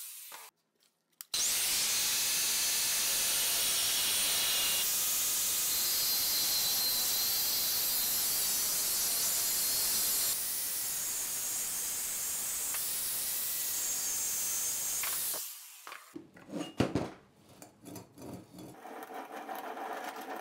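Angle grinder with a cut-off disc cutting through the metal tubes of a bicycle frame: a steady, loud, high-pitched grinding that runs for about fourteen seconds, dropping a little in level about two-thirds of the way through. It then stops, followed by scattered knocks and clatter as the frame is handled on the bench.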